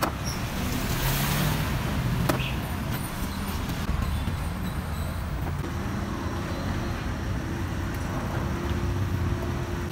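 Street traffic: motorbike and car engines running steadily, with a short sharp knock about two seconds in.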